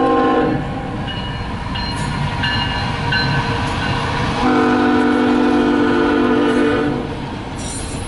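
Freight locomotive's air horn sounding over the rumble of the passing CSX intermodal train: one short blast at the start, then a longer blast of about two and a half seconds, beginning about four and a half seconds in.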